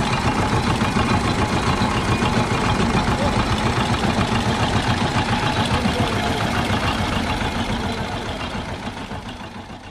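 Small single-cylinder diesel engine that drives a sugarcane juice roller press, idling with an even, rapid pulsing beat. It fades out near the end.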